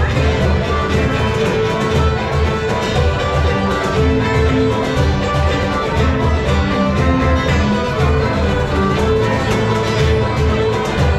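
Live folk dance band playing a polka, with a steady bouncing beat.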